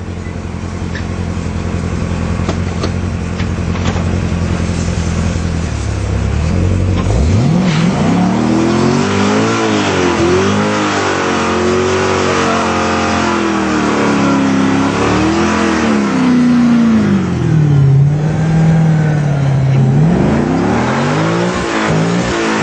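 Corvette Z06's V8 idling steadily, then revved hard about seven seconds in. It is held at high revs, pitch swinging up and down, as the rear tyres spin in a smoky burnout, with a steady tyre hiss underneath.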